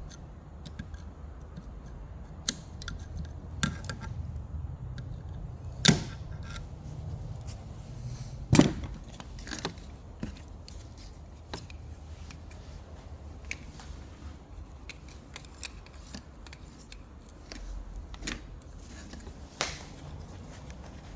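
Alternator parts being handled and fitted on a workbench: scattered sharp clicks and knocks, the two loudest about six and eight and a half seconds in, over a low steady hum.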